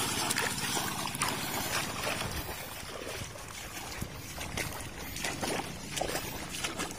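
Water splashing and sloshing, with a low motor hum under it for the first couple of seconds.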